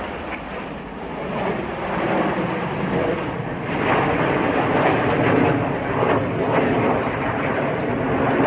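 BAE Hawk T1 jet noise from their Rolls-Royce Turbomeca Adour turbofans, an even rushing sound that swells from about a second in and stays loud as the jets pass.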